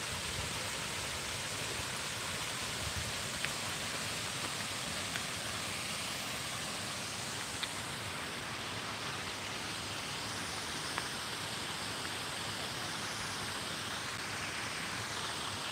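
Steady outdoor hiss with a few faint ticks scattered through it.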